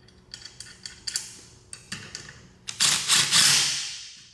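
Light clicks and knocks of the nuts, bolts and caster parts being handled for mounting the casters. About three seconds in, a louder rattling hiss swells and fades over about a second and a half.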